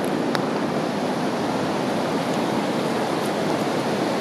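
Steady rushing of the Tiroler Ache, an alpine river running high and strong with lots of water. Two faint clicks sound right at the start.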